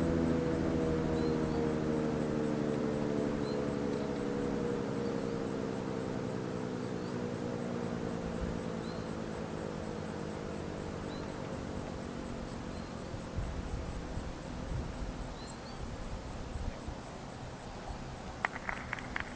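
ACA Allertor 125 10/12-port siren winding down: its chord of two tones slowly falls in pitch and fades over about ten seconds. Insects chirp steadily and high-pitched throughout.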